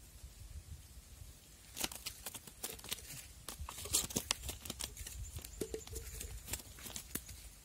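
Close, irregular crackling and rustling, a quick run of sharp clicks that starts about two seconds in and eases off near the end.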